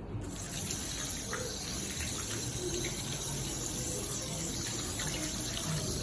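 Water running steadily from a tap into a sink, turned on just after the start.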